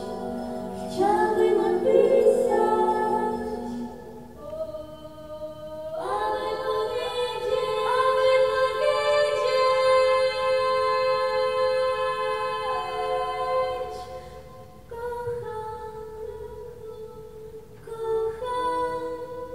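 A woman singing unaccompanied into a microphone in slow, long-held notes that step up and down in pitch. One note is held for several seconds in the middle, and the singing grows softer near the end.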